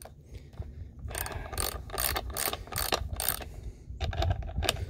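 Socket ratchet clicking in quick runs, with a short pause near the end, as it turns a bar nut down onto the bar stud of a Stihl MS391 chainsaw.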